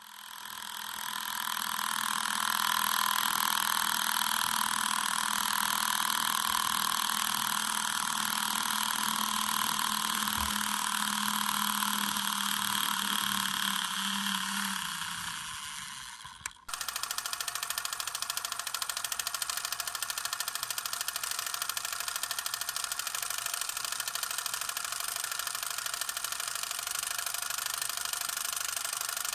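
8 mm film camera mechanism running with a steady mechanical whir that winds down and fades out a little after halfway. Then a second, brighter film-mechanism clatter starts abruptly and runs steadily.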